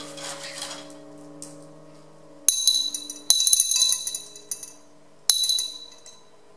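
A prepared piano's last notes ring and fade, then three sharp metallic clinks with a bright, jangling ring: one about two and a half seconds in, a rattling cluster about a second later, and one more near the end. Faint piano tones keep sounding under them.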